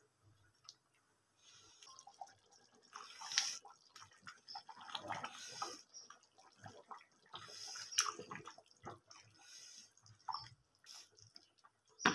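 Metal ladle stirring thick chicken curry gravy in a steel pot: wet sloshing and squelching in uneven strokes, with two sharper knocks about a third and two thirds of the way through.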